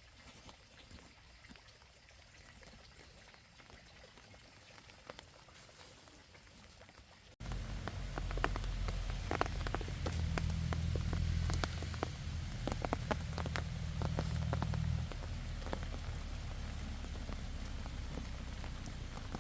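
Rain falling, with many separate drops striking close by over a steady low rumble. It starts abruptly about seven seconds in, after a quiet stretch with only a faint high whine.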